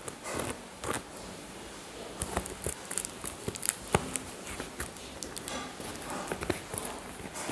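Brown paper-wrapped parcel being picked and torn open by hand: an irregular run of scratching, crinkling and tearing sounds.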